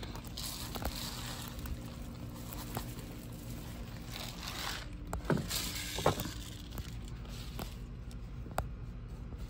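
Granular fertilizer shaken from a shaker canister, the granules pattering and hissing onto potting soil and sweet potato leaves in two spells, with a couple of sharp clicks in the middle.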